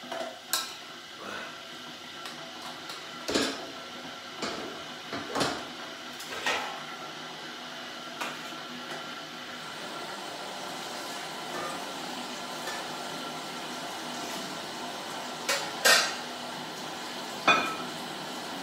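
Metal kitchen utensils and pans clanking and knocking: a handful of separate knocks in the first seven seconds, then two sharper, louder clanks near the end, over a steady background noise.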